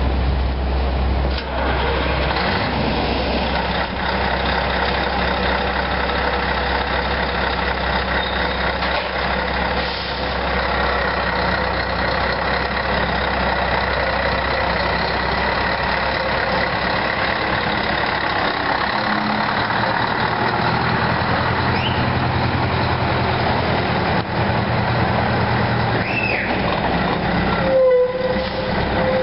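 Scania 164L 530 truck's V8 diesel running at low speed as the truck manoeuvres, its note shifting about two-thirds of the way through as it pulls away. A brief squeal near the end.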